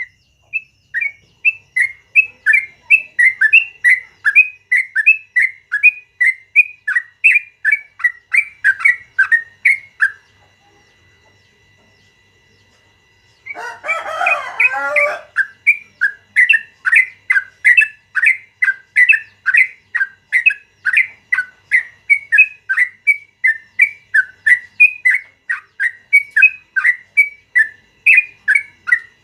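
Sooty-headed bulbul (trucukan) singing a long run of short whistled notes, about three a second, stopping around ten seconds in. After a pause of about three seconds a lower, rougher call lasts about two seconds, then the bulbul takes up its run of notes again.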